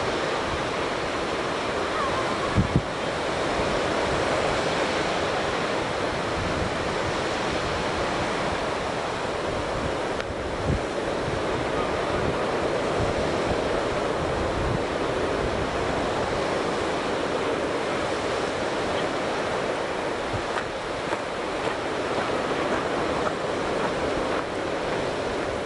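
Ocean surf washing onto a sandy beach, a steady rushing wash of waves. Wind blows across the microphone, with a few brief low thumps, the strongest about three seconds in.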